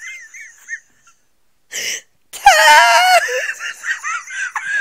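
A person laughing in high, wavering giggles: a trailing giggle at the start, a short breathy burst near the middle, then a louder high squeal of laughter that runs on into more giggling, from someone with laryngitis.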